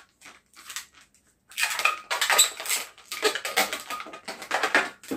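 Inflated latex modelling balloons squeaking and rubbing against each other and against the hands as they are shaped and twisted into small bubbles. Nearly quiet for the first second and a half, then a dense run of squeaks and rubs.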